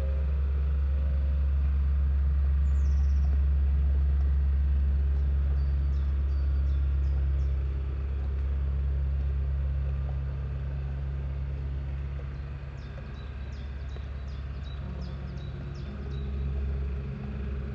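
Processed field recording: a steady deep rumble with a few held low tones, and faint high bird chirps in two brief clusters. The rumble eases off about halfway through.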